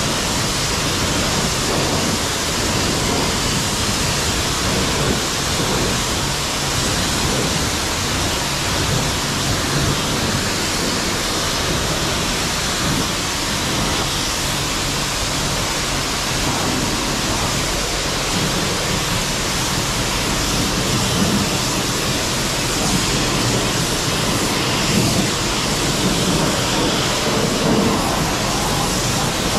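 Steady rush of high-pressure water spray, as from a pressure-wash wand on a truck, with small swells in loudness.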